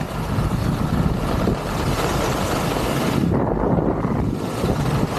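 Wind rushing over the action camera's microphone and skis scraping over hard-packed snow during a fast downhill run. The hiss eases for about a second just past the middle.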